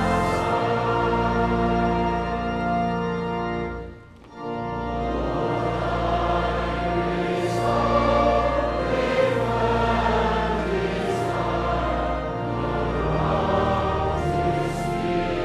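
Congregation singing a hymn with organ accompaniment. The last chord of one verse is held, there is a brief pause about four seconds in, and then organ and voices begin the next verse.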